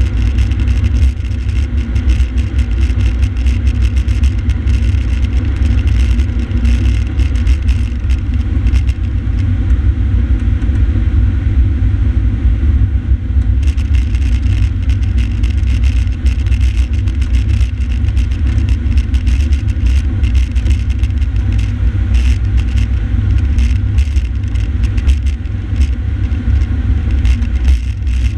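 Fire engine's diesel engine and tyre noise, a steady low rumble while cruising at freeway speed.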